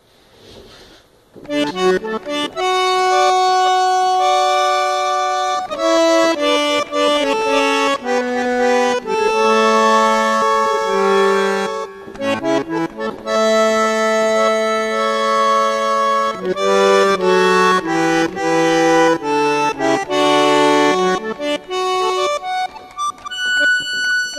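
Sampled bandoneon played on a Korg Krome keyboard, a chamamé tune in held chords and a moving melody, starting about a second and a half in.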